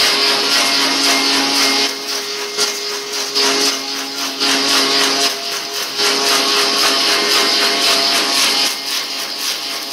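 Electric motor of a woodworking machine running steadily in the workshop: a hum with a high hiss. It eases off briefly about two seconds in and again midway, as its load shifts.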